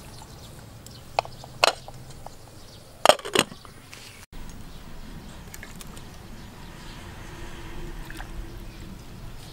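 A few sharp clinks of glass and metal as a glass lid is set onto a steel cooking pot, the loudest pair about three seconds in. After a brief dropout, steady outdoor background with a few faint clicks.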